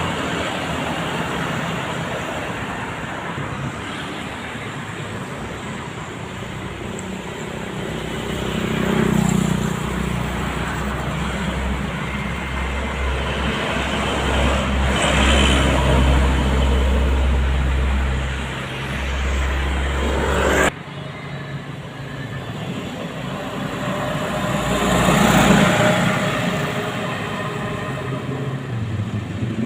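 Busy roadside traffic, with vehicles passing one after another and the noise swelling as each goes by. A deep rumble runs through the middle stretch. The sound drops suddenly about two-thirds of the way in.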